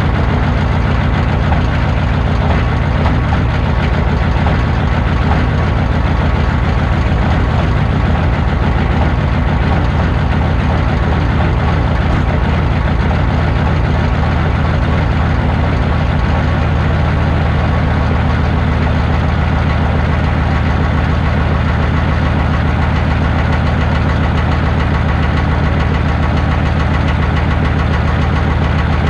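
Chevrolet 6.5-litre V8 diesel idling steadily in −8 °F cold soon after a cold start, heard close to the tailpipe: a loud, even exhaust pulse with diesel clatter, no revving.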